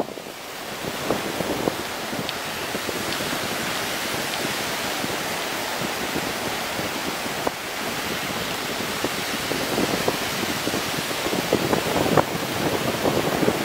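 Steady surf breaking on a sandy beach, with wind gusting across the microphone.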